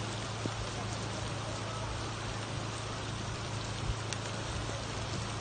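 Heavy rain falling in a steady, unbroken hiss, with a steady low hum beneath it.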